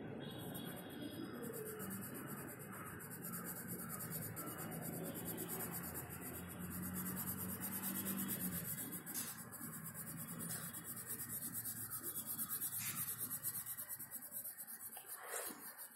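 Pencil shading on notebook paper: graphite rubbing back and forth over the page in quick strokes, most regular in the second half.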